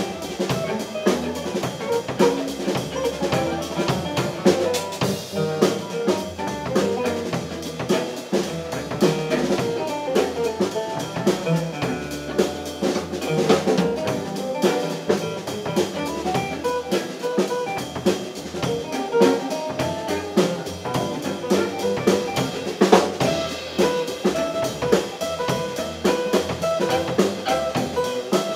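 Live string band of fiddle, banjo, acoustic guitar and upright bass with a drum kit, playing an instrumental tune with a steady beat.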